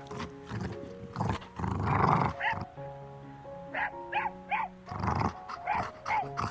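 A dog barking repeatedly in short calls over background music with held notes.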